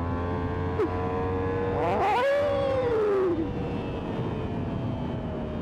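Yamaha MT-10's crossplane inline-four engine running under way, its note rising sharply about two seconds in as the revs climb, then falling away over the next second and settling at a lower, steady pitch.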